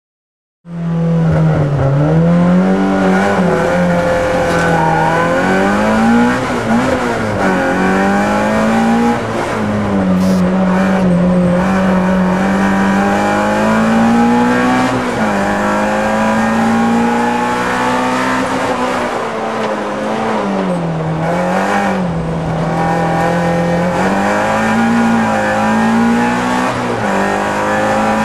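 Citroën Saxo rally car's engine heard from inside the cabin at stage pace, the revs climbing and dropping again and again through gear changes.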